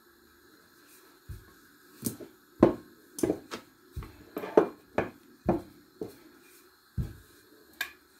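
Wooden rolling pin knocking and tapping on a floured kitchen worktop as chapati dough is rolled out: over a dozen short, sharp, irregular knocks, starting about a second in.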